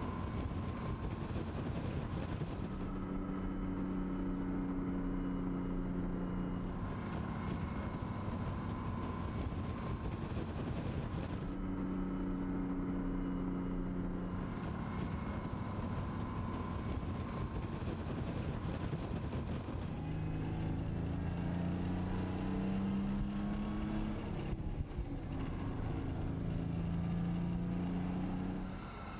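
The Detroit Diesel 6-71 two-stroke inline-six in a 1950 GMC 950 truck, running under load as the truck drives. Its note climbs for a few seconds about two-thirds of the way through, then drops sharply, as at a gear change.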